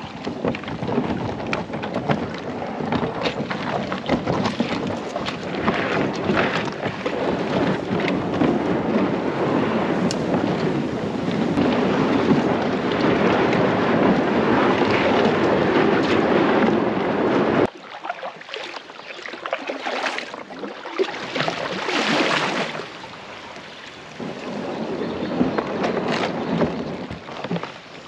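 Plastic kayak hull dragging over creek gravel and through shallow running water, a loud steady scraping rush. It stops suddenly a little past halfway, leaving quieter, uneven scraping and water noise.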